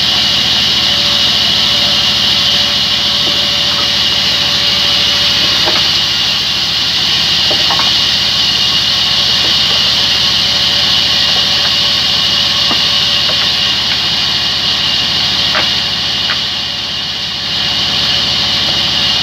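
Large log band saw running and ripping through a heavy timber slab: a steady, loud hiss of the blade in the wood over the constant hum of the machine. It dips briefly about three-quarters of the way through, with a few faint knocks along the way.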